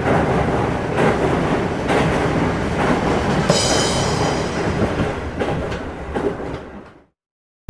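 Loud rumbling noise with a knock about once a second and a brief high-pitched squeal a little past the middle, fading out near the end.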